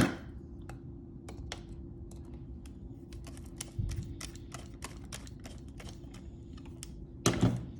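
Rapid, irregular small metallic clicks from a door latch as its cover-plate screws are driven in with a screwdriver, with a louder knock near the end.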